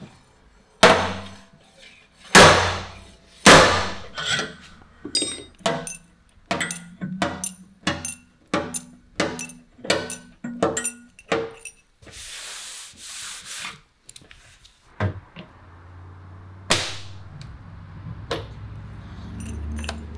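Metalwork tools striking and working a Porsche 991 GT3 RS steel quarter panel. Three loud sharp impacts come first, then a run of about a dozen evenly spaced strikes, roughly one and a half a second. Then comes about two seconds of harsh hissing noise, and a few more strikes.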